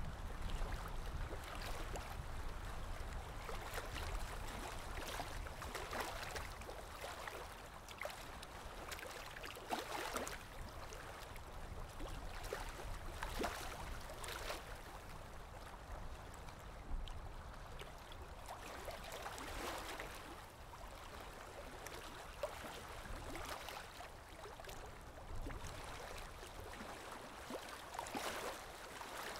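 Steady rushing water with soft swells every few seconds, serving as the masking sound of a subliminal affirmation track.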